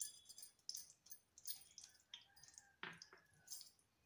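Near silence with a few faint clicks and light taps from kitchen utensils being handled at a stove.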